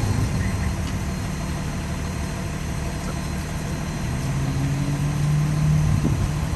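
Car engines running at idle, with one engine note rising slightly from about four seconds in as a vehicle pulls away.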